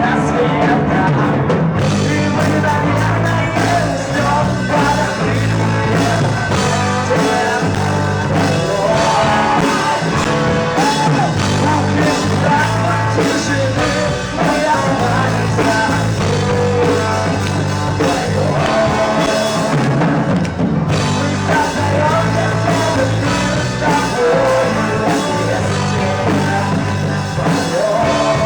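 A rock band playing live with a singer over it, loud and continuous.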